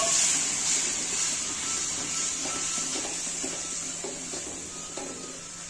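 Halwa cooking in a steel kadhai: a steady sizzling hiss that is strongest at the start and slowly fades, with soft knocks and scrapes of the spoon stirring it.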